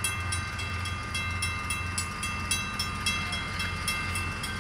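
Railroad grade-crossing warning bell ringing repeatedly, about three or four strikes a second, over a steady low rumble from the approaching train.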